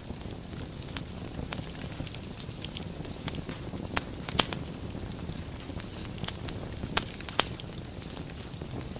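Wood fire burning in a fireplace: a steady low rumble of flames with scattered crackles and a few sharp pops from the logs, the loudest a pair about four seconds in and another pair near seven seconds.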